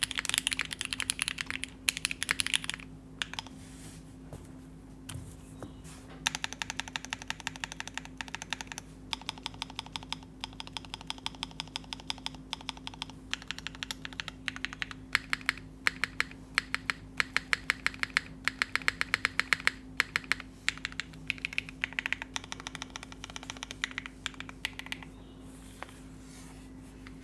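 Keycult No.2 65% mechanical keyboard with lubed Tecsee Carrot switches, aluminium plate and GMK keycaps, typed on in fast runs of key clacks broken by a few short pauses. A faint steady low hum lies underneath.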